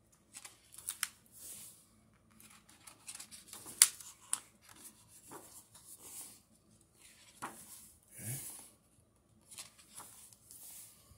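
Thick glossy pages of a hardcover comic book being turned one after another: repeated paper swishes with sharp snaps as pages flip over, the loudest a little before four seconds in.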